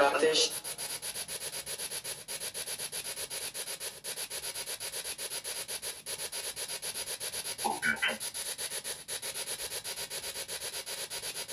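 GhostTube spirit-box sweep: scratchy static chopped into even pulses several times a second, with a brief voice-like fragment about eight seconds in.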